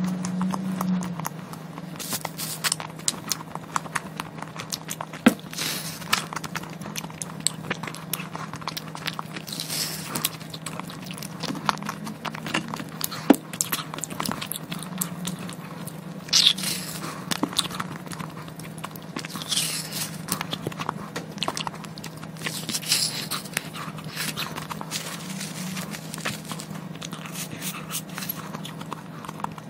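Close-miked mouth sounds of eating frozen ice cream from a squeeze tube: wet sucking, smacking and small bites, in scattered short bursts over a steady low hum.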